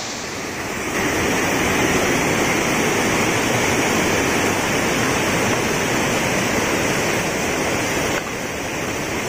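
Steady rush of flowing water. It gets louder about a second in and drops slightly near the end.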